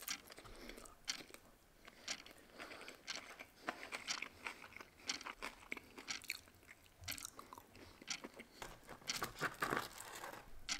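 A person eating close to the microphone: chewing noodles and biting crispy battered fried food, with many short, irregular crunches and wet mouth sounds.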